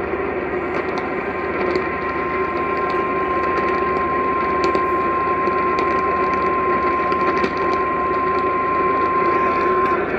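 Emergency alert attention tone: a single steady high tone held for about eight seconds, starting about a second and a half in and cutting off near the end. It plays over a constant hum and hiss of broadcast background noise, and it signals that an emergency alert message follows.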